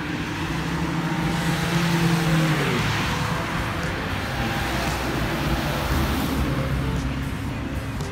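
A motor vehicle passing close by on the road: its engine hum swells and then drops in pitch about three seconds in as it goes past, leaving steady traffic noise.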